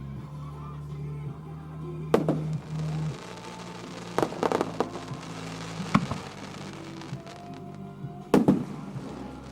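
Aerial firework shells bursting: sharp booms about two seconds in, a quick cluster of crackling reports a little later, another at six seconds and the loudest one near the end, with music playing underneath.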